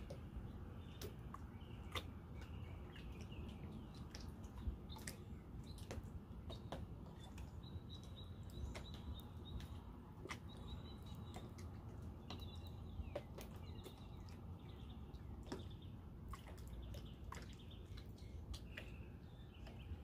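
Calm waterside ambience: a steady low rumble of wind and water, with scattered small clicks and plops of water lapping and a few faint bird chirps.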